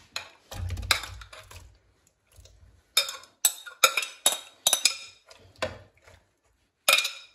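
A stainless-steel spoon scraping and clinking against a glass bowl as chopped tomatoes are spooned out, with a run of sharp clinks in the second half.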